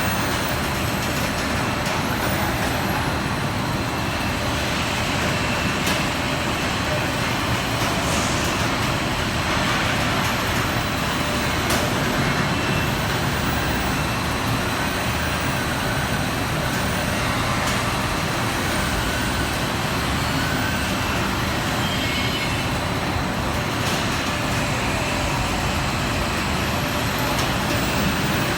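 Steady, loud machinery noise with an even rumble and hiss that holds without a break, like a factory machine running.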